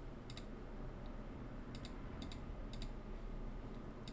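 Computer mouse clicking on calculator-emulator buttons: one sharp click early, then three more about half a second apart and another at the very end, over a faint low hum.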